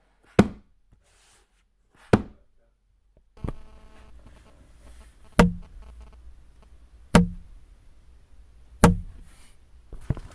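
Five sharp knocks, spaced a second and a half to two seconds apart, each with a short low ring after it. A faint steady hiss comes in about three seconds in.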